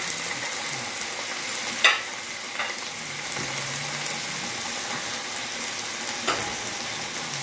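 Stir-fry vegetables (carrots, green peppers, bean sprouts, bamboo shoots) sizzling steadily in hot oil in a frying pan. A few light knocks sound over it, the loudest about two seconds in and another near the end.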